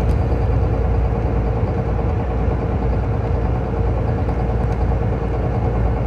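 Steady low rumble of a running car engine, with a thin steady hum above it.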